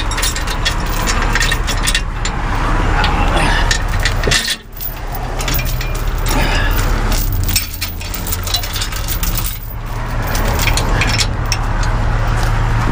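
Steel tow chains clinking and rattling as they are handled and hooked under a semi, with many short irregular clinks. Underneath runs a steady low diesel engine hum.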